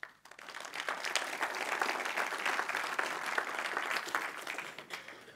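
Audience applauding: a dense patter of many hands clapping that swells in at the start, eases off slightly toward the end and is cut off abruptly.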